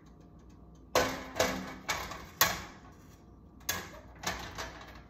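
An egg being tapped against the rim of a frying pan, a series of sharp knocks with a short metallic ring, about eight taps, the four loudest in the first half: an attempt to crack it with one hand.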